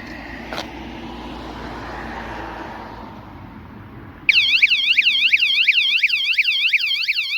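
Mengshen wireless anti-theft bike alarm set off about four seconds in: a loud electronic siren warbling up and down, about three sweeps a second. Before it there is only a steady background rumble and hiss, with one click.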